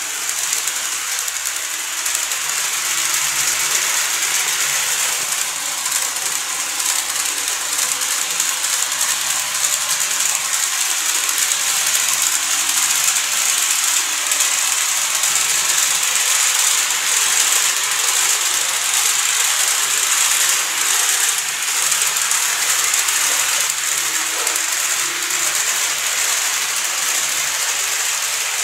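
KATO E231 series model train running on its track: a steady, unbroken rattling whir of the small wheels and motor.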